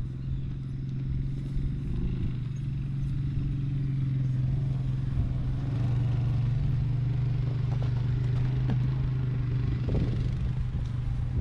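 A motor vehicle engine running with a steady low hum, with a few faint knocks in the second half.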